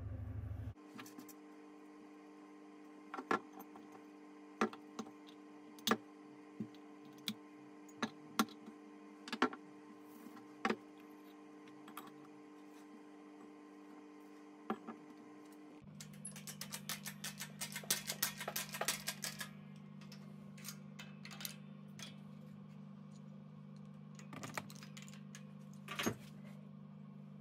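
Metal parts of a smog pump being handled and fitted during reassembly: scattered sharp clicks and taps, then a quick run of rattling clicks about sixteen seconds in. A steady low drone sits underneath and drops in pitch at the same point.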